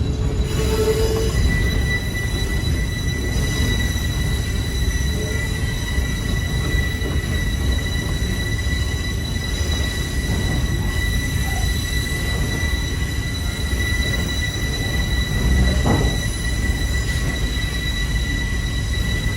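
Passenger train rolling with a steady low rumble and a steady high-pitched squeal from its running gear that sets in about a second in, with a sharp knock near the end.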